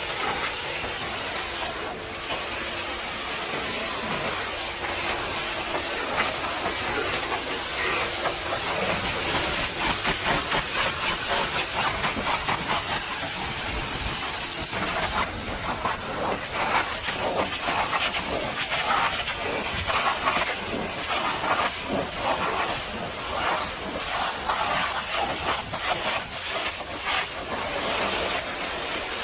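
High-pressure water jet from a pressure washer spraying mud off a vehicle: a continuous rush of spray that flickers and changes as the jet sweeps across the body.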